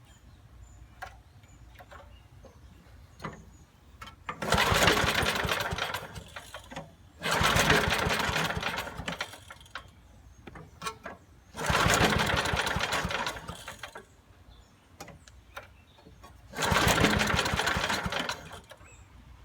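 Small engine of a 1980s Billy Goat lawn vacuum being pull-started four times, each pull giving about two seconds of cranking that dies away without the engine catching. The owner finds it isn't sparking.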